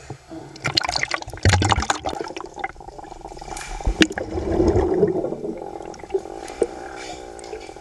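Pool water splashing and gurgling as the camera goes under the surface, then muffled underwater sound with a steady hum.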